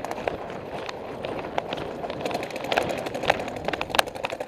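Running footsteps pounding on a dirt field with gear jostling, one footfall about every two-thirds of a second. From about two seconds in, paintball markers fire in faint rapid strings of pops.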